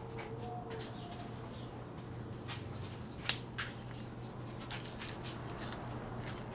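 Quiet kitchen room tone with a steady low hum, a few light clicks and taps from ingredients being handled by the blender jar, and a brief faint call near the start.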